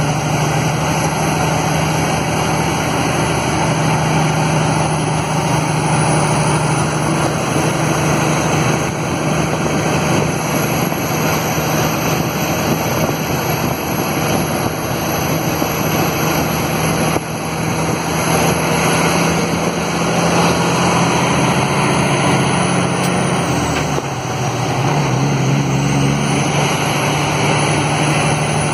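Kenworth T800's Cummins diesel engine under engine brake on a long mountain descent: a loud, steady drone that dips briefly in pitch near the end, then settles back.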